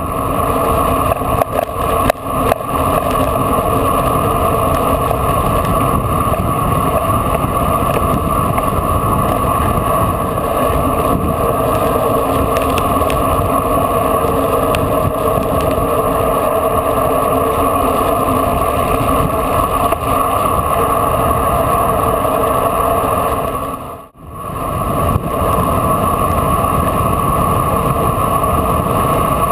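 Steady wind rush over a bike-mounted action camera during a fast road-bicycle descent, with a dense buffeting roar. It fades out and back in briefly about 24 seconds in.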